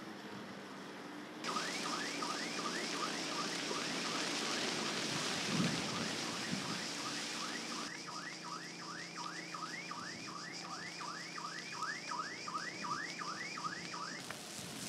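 An electronic alarm siren sounding a fast rising-and-falling yelp, about three cycles a second, fainter for a few seconds in the middle and then stronger again, over a steady rushing noise.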